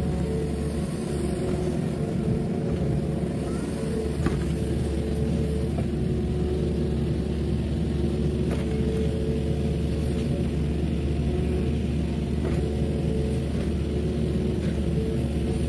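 Mini excavator's diesel engine running steadily under working load as the excavator dumps a bucket of dirt into a dump truck and swings back to dig. A few faint knocks come through.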